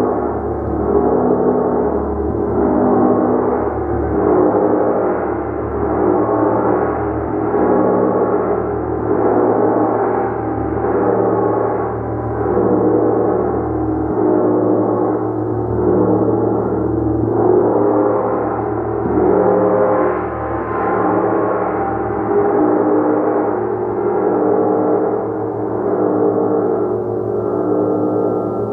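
A gong played continuously, struck softly again and again so that its ringing never dies away. It makes a dense wash of many overlapping tones that swells and eases roughly every second and a half.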